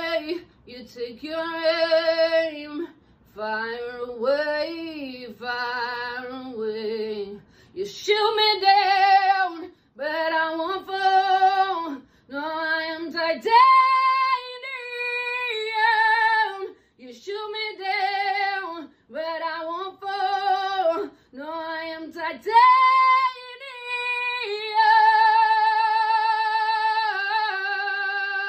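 A woman singing unaccompanied in short phrases that slide up and down in pitch, with brief silences between them, then holding one long steady note for the last few seconds.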